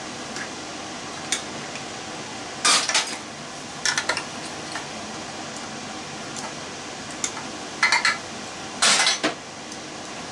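Small metal parts and hand tools clinking and clattering as they are handled on a work table, in several short bursts, over a steady fan or air-conditioner hum.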